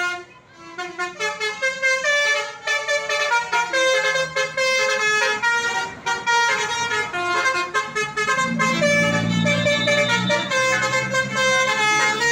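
Bus telolet horn of the 'basuri' type playing a quick, tuneful melody of many short horn notes. A low engine rumble swells underneath for a couple of seconds past the middle.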